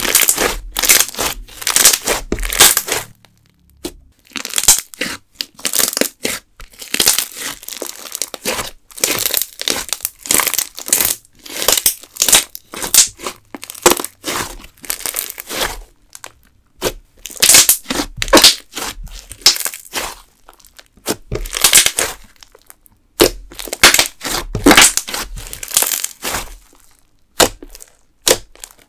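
Hands squeezing, kneading and poking a soft glittery slime, giving dense runs of wet crackling pops and clicks in bouts of a second or two with short pauses between.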